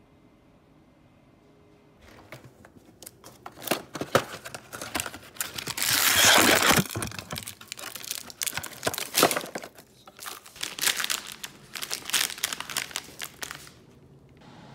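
Cardboard box and plastic-wrapped Melona ice cream bars being handled, with crinkling, rustling and tearing-like noises starting about two seconds in. The loudest is a longer rustle near the middle.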